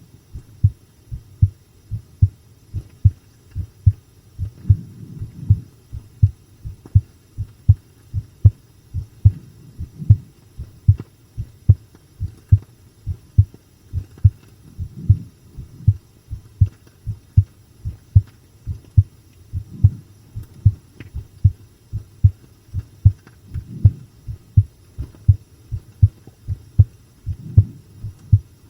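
A person's heartbeat picked up close against the chest: a steady, even rhythm of deep paired lub-dub thumps, strong rather than fast, with a low hum between beats.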